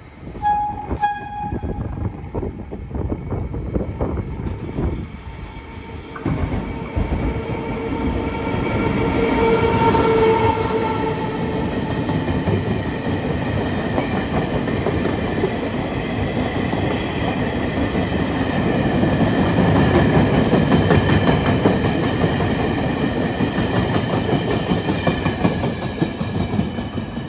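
Taiwan Railways E236 electric locomotive and its painted passenger carriages passing close through a station: a brief horn sound in the first second, then from about six seconds in a loud rumble and wheel clatter with a steady whine above it, loudest around ten and twenty seconds in.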